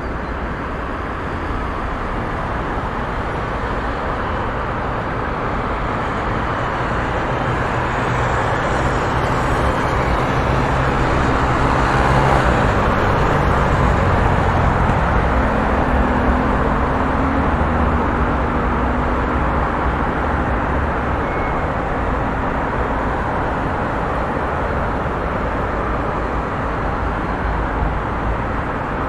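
Busy highway traffic: a continuous rush of tyres and engines. It swells as a nearer vehicle passes, loudest about twelve seconds in.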